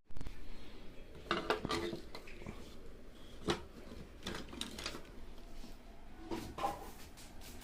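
Scattered light metallic clinks and knocks, as of metal tools or parts being handled and set down, at irregular intervals.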